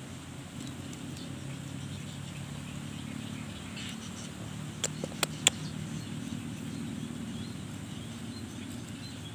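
A low, steady engine hum running throughout, with three short sharp clicks close together about five seconds in.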